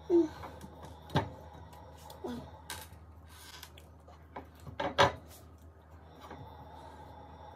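A banana being bitten and nudged around a ceramic plate with the mouth, no hands: a few sharp knocks of the plate and fruit against each other and the countertop, the loudest right at the start and about five seconds in, between soft rubbing and scraping.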